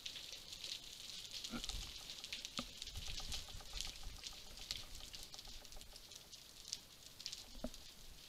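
Underwater ambience over a rocky sea bottom: a dense, steady crackle of tiny clicks with a low rumble of moving water, and a few soft knocks.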